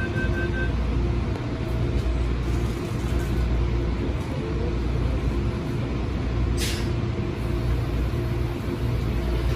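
MTR electric trains at the platform: pulsed door-closing warning beeps end about half a second in, then a steady low rumble and motor hum. A short, sharp hiss of compressed air comes about seven seconds in.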